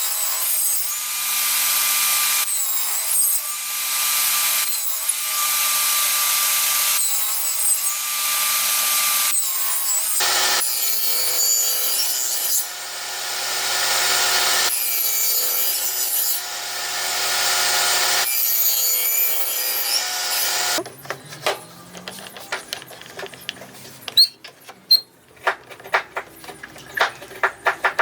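Woodworking power tool running and cutting wood in several stretches of about two seconds each, with a steady motor whine under the cutting noise. About three-quarters of the way through it gives way to a run of sharp knocks and taps on wood.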